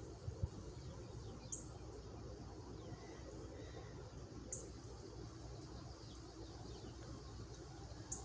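Quiet outdoor ambience: a short high bird chirp three times, about every three seconds, over a steady high insect buzz and low background noise. A soft thump sounds just after the start.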